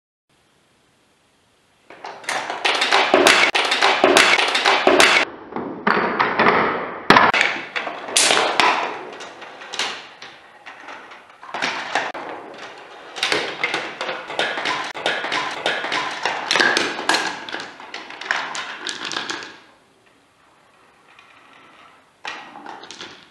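Steel and glass marbles rolling and clattering through a Gravitrax plastic marble run: a rolling rumble broken by many clicks and knocks as the balls drop, strike each other and land. It goes quiet about twenty seconds in, then a short clatter follows near the end.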